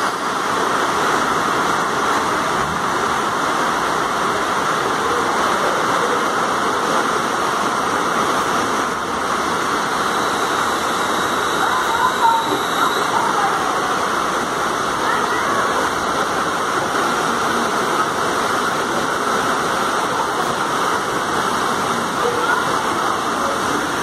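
Torrential rain and rushing floodwater: a steady, loud, even rushing noise with no let-up. A faint high tone sounds briefly about halfway through.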